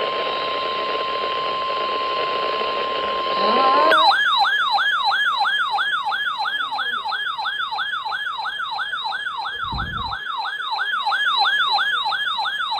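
NOAA Weather Radio warning alarm: a steady 1050 Hz tone over radio hiss. About four seconds in it gives way to a fast electronic yelp siren, sweeping up and down about three times a second, which sounds as the alert for a severe thunderstorm warning.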